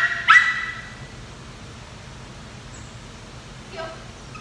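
Toy poodle yelping: one high-pitched yelp just after the start, rising at its onset and trailing off over about half a second. A faint short whine follows near the end.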